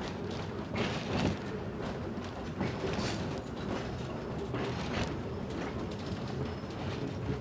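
Antique electric trolley car running along the track, heard from inside the car by an open window: a steady rumble of the moving car with irregular clacks and knocks of the wheels over the rails.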